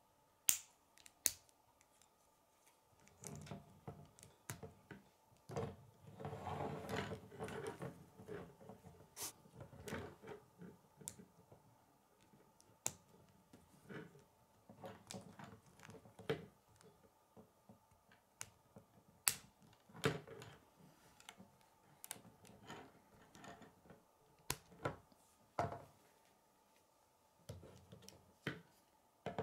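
Plastic K'nex rods and connectors being snapped together and handled: irregular sharp clicks, with a longer stretch of rustling and rattling of pieces from about three to ten seconds in.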